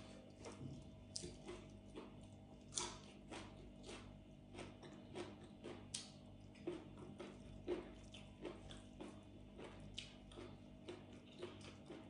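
A person chewing and biting food close to the microphone, a soft run of short crisp mouth clicks about twice a second.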